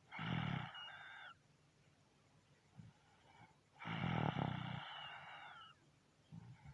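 A person snoring loudly: two long snores nearly four seconds apart, the second a little longer.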